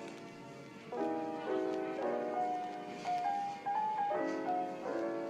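Background music: soft piano-led instrumental with chords changing every second or so and a simple melody on top.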